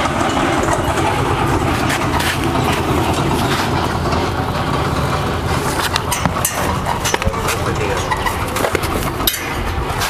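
A motor engine running steadily, with a few sharp clicks and knocks in the second half.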